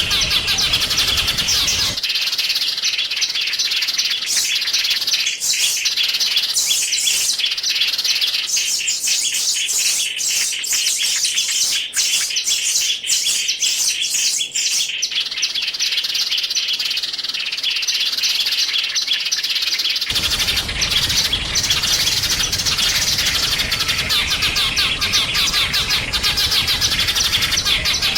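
Small songbirds chirping and twittering, fast and dense with no pause. The background changes abruptly twice, about two seconds in and again near twenty seconds, as one recording is cut to another.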